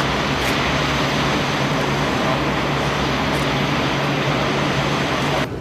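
Steady, loud flight-line machinery noise, an even rushing sound over a constant low hum, which stops abruptly near the end.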